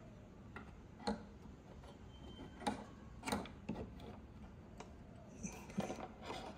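Scattered light clicks and taps as the LHY Audio linear power supply board is handled and seated into the Eversolo DMP-A8's chassis, its IEC inlet being lined up with the cutout.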